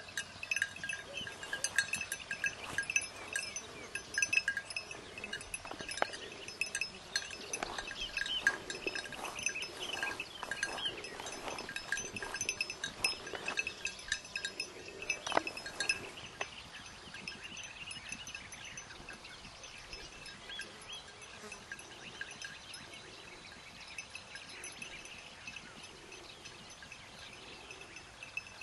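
Small metal bells jingling irregularly with a clear ringing tone, busy at first and thinning out and growing quieter after about sixteen seconds.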